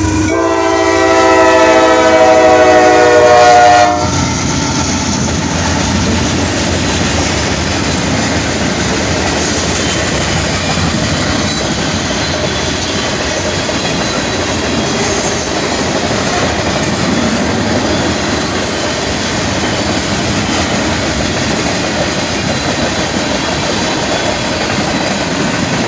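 Norfolk Southern train's locomotive air horn sounding a loud chord for about four seconds and cutting off, then the train rolling steadily past close by, its wheels running over the rails.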